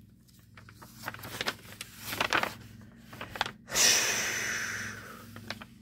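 Plastic photocard sleeves and packaging rustling as cards are handled, followed about four seconds in by a loud breathy hiss that fades out over a second or so.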